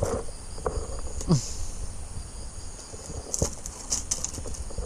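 Insects chirping steadily, with a few knocks and rattles from a wooden rack being handled. A short falling sound about a second in is the loudest moment.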